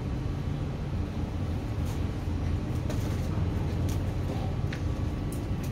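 A steady low mechanical rumble, with a few faint scattered ticks over it.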